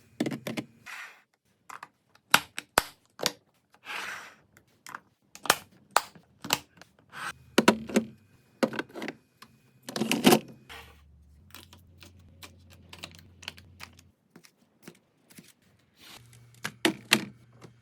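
Food containers, bottles and packages being handled and set on refrigerator shelves while restocking: an irregular run of sharp clicks, taps and knocks, with brief rustling now and then.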